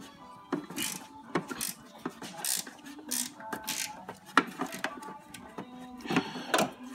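Hand socket ratchet clicking in several short, irregular strokes, loosening the 13 mm nuts on top of the minivan's front strut mount. Faint music plays underneath.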